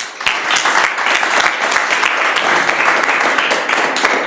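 Audience applauding: many hands clapping at once in a dense, steady clatter.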